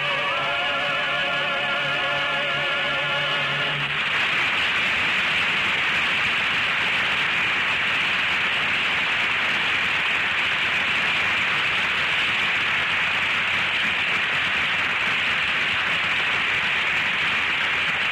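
Final sustained, wavering note of a song, sung over an orchestra, which ends about four seconds in. A studio audience then applauds steadily.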